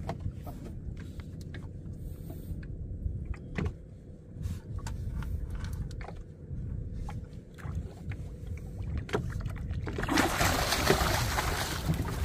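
A hooked king mackerel splashing at the surface beside a small wooden boat as it is hauled up to the side. The splashing comes in loudly about ten seconds in, over a steady low rumble and scattered light knocks against the boat.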